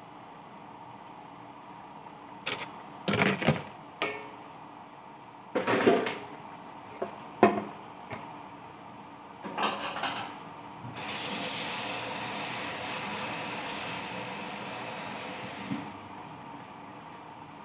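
Pots, dishes or utensils clattering several times, then a steady hiss lasting about five seconds.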